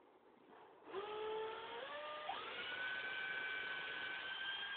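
Cordless drill/driver motor whining as it backs out a woofer mounting screw. The whine starts about a second in, steps up in pitch twice, then holds steady until it stops at the end.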